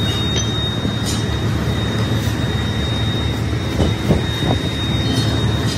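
Steady drone of workshop machinery, with a constant high whine over it and a few soft taps about two thirds through.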